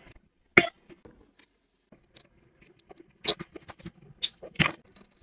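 Small hard plastic pieces handled by hand: a few sharp clicks and taps with light ticking between them.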